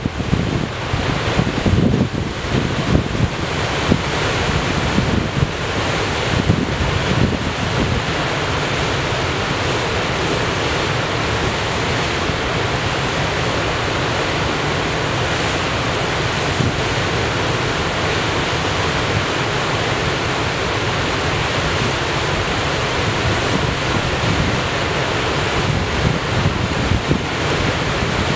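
A dam outlet releasing a large flow of water: steady, loud rushing and churning of whitewater and spray. Wind buffets the microphone in gusts for the first several seconds, then the water noise goes on evenly.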